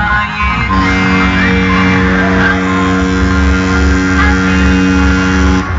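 Loud music played through a pickup truck's competition sound system: a pounding bass beat under a held chord that starts under a second in and breaks off suddenly near the end.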